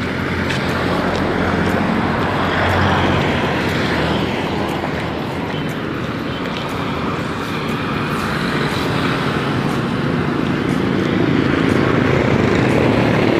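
Road traffic along a busy street: motorcycle and vehicle engines with tyre noise, swelling as vehicles pass close by.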